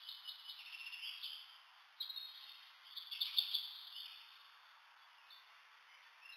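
High-pitched, rapid chirping calls of small animals in two bouts, the first at the start and the louder second from about two to four seconds in, over a steady high hiss.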